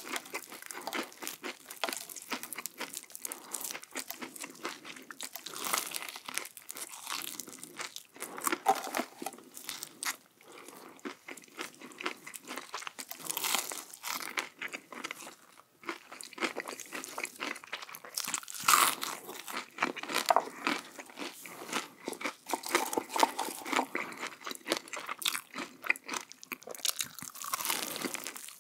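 A person biting into and chewing crunchy food close to the microphone, with many irregular crunches one after another.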